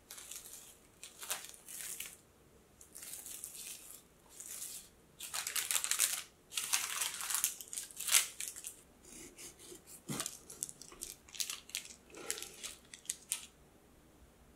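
Plastic cling film and parchment paper crinkling and rustling in uneven bursts as they are handled and peeled back from a loaf cake, with a soft knock about ten seconds in.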